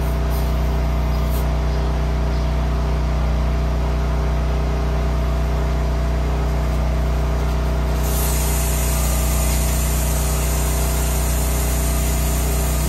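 A machine running steadily with a low, even hum, such as an engine idling or a motor running. A higher hiss joins about eight seconds in.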